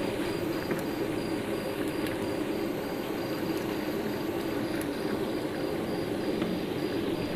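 Besan sev frying in a large kadhai of hot oil: steady sizzling and bubbling of the oil.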